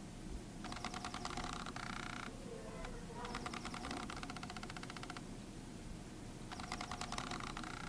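Sigma 50-150mm f/2.8 EX DC OS lens's focus motor driving the focus back and forth under autofocus, heard up close through the camera-mounted mic. It comes as three bursts of fast, fine ticking, each lasting a second or two, with short pauses between them.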